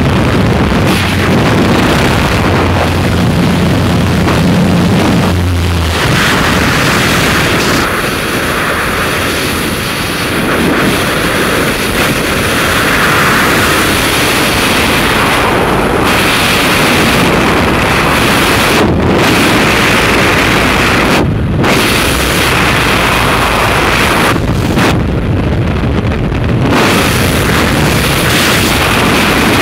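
Jump-plane engine drone and rushing air at the open door, giving way about six seconds in to loud, steady freefall wind noise buffeting the helmet camera's microphone.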